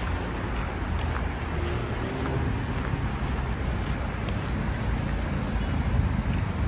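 Steady road traffic on a city street: a continuous low rumble of passing vehicles with a haze of street noise.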